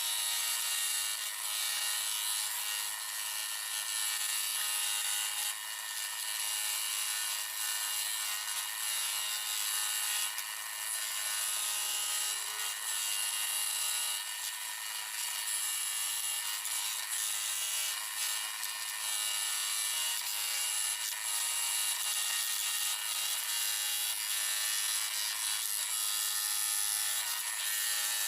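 Scroll saw running steadily, its blade sawing through wood.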